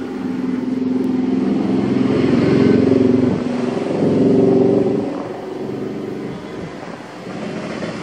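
A motor vehicle engine running and revving, growing louder twice, about two and four seconds in, then easing off.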